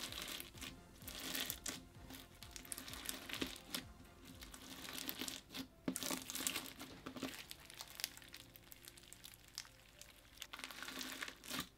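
Crunchy bead-filled slime being pressed and stretched by hand, giving off an irregular run of small crunches and crackles as the beads pop and shift.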